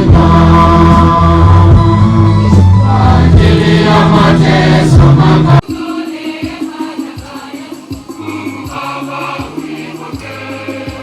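Choir singing over a loud, sustained accompaniment, then an abrupt cut about halfway through to quieter music with a steady drumbeat.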